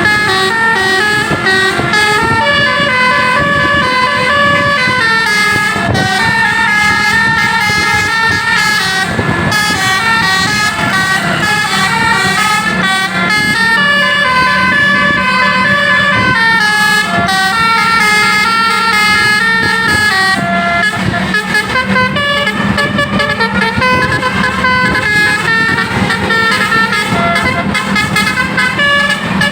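Multi-trumpet 'basuri' telolet bus air horn playing a melody: several notes sound at once and step up and down in short phrases without a break, over a steady low hum.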